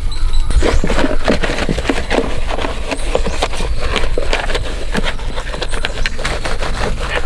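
A soapy sponge and wet hands scrubbing the plastic body panels of a TVS Wego scooter: a quick, irregular run of short rubbing strokes over a steady low hum.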